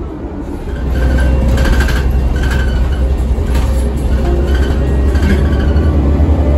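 Diesel engine of a New Flyer D60LFR articulated transit bus revving up under load as the bus pulls away, a deep rumble heard from inside the cabin that grows louder about a second in.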